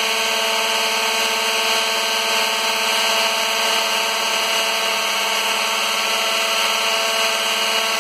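Plunge router running steadily, a constant whine over even cutting noise, as its bit routs a concave flute along a wooden baluster held in a router jig.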